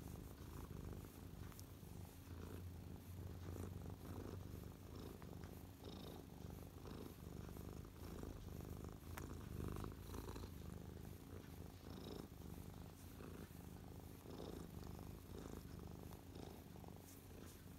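Tabby cat purring steadily up close, a low, even rumble: the contented purr of a cat being stroked under the chin.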